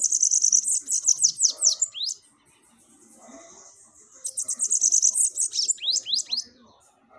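Bananaquit (sibite) singing: two bouts of rapid, very high-pitched twittering song, each about two seconds long and ending in a few quick upslurred notes.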